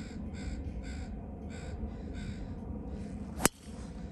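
A driver striking a golf ball off the tee: one sharp crack about three and a half seconds in, the loudest sound. A bird calls over and over, about twice a second, throughout.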